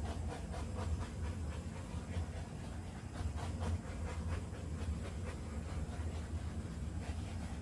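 Small handheld butane torch flame burning steadily with a hiss and a low rumble as it is passed over a wet acrylic pour to pop air bubbles in the paint.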